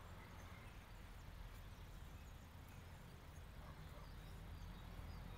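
Quiet background with a steady low rumble and a few faint, short bird chirps.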